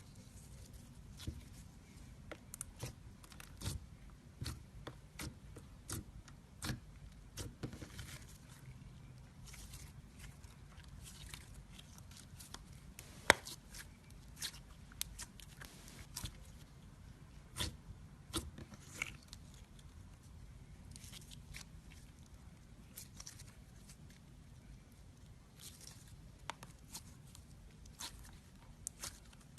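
Slime being squeezed and poked by hand, giving irregular small clicks, pops and crackles, with one louder pop about halfway through.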